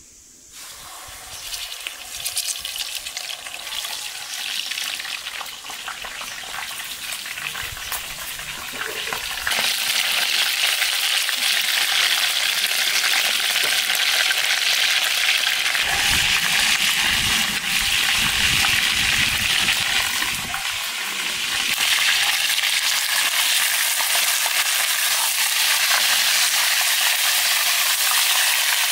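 Pieces of lamb sizzling as they fry in hot vegetable oil in a metal pan. The sizzle starts as the meat goes in and grows louder and steadier about ten seconds in.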